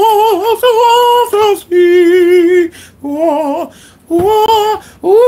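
A voice mock-singing opera: high, held notes with a wide vibrato, in several short phrases broken by brief pauses.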